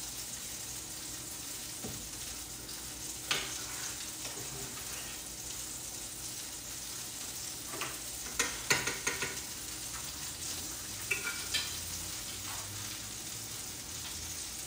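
Chicken frying in butter in a pan, a steady sizzle, with a utensil clicking and scraping against the pan about three seconds in, in a quick cluster around eight to nine seconds, and again near eleven seconds.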